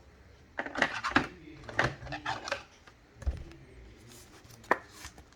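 Light, irregular clicks and taps of things being handled on a table, with a dull thump about three seconds in and one sharp click near the end.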